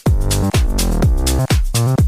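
Background electronic dance music with a steady beat and sliding synth bass.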